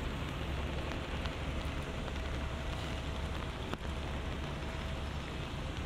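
Steady rain falling on a wet city street, an even hiss over a low city rumble. A faint steady tone comes in about two seconds in, and there is a single sharp click near four seconds.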